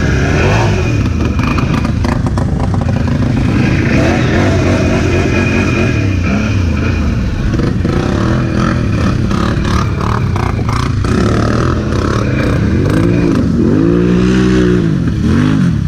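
ATV engines running hard through mud, revving up and down several times in the last few seconds, with scattered knocks and clatter in the middle.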